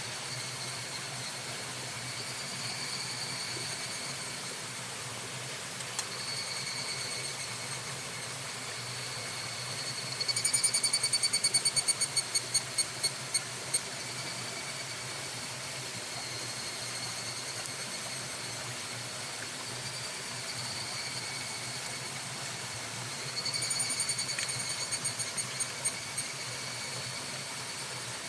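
Evening cicadas (higurashi) calling. Twice, about ten seconds in and again near the end, a loud run of rapid, ringing pulses slows and fades over three or four seconds. Under them is a steady, high-pitched insect drone.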